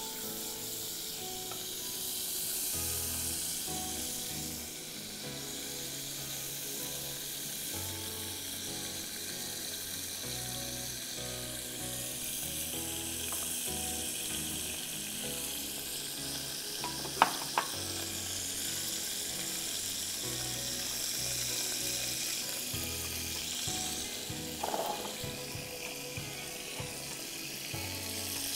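Butter sizzling as it melts in a saucepan, with soft background music. Two quick clinks of a utensil a little past halfway.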